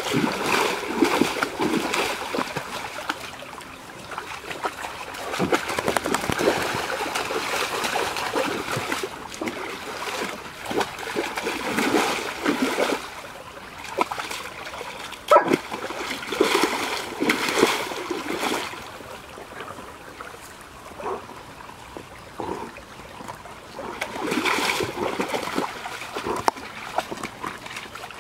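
A dog splashing as it wades and paws through a shallow stream, water splattering in irregular bursts with quieter trickling of running water between. There is one sharp knock about halfway through.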